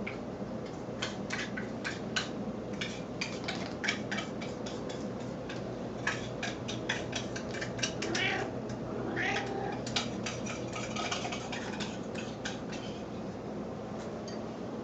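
Snowshoe cat making a rapid series of short, high chirping calls, with a couple of longer drawn-out meows about eight and nine seconds in: baby-like begging sounds this cat makes when expecting food. A steady low hum runs underneath.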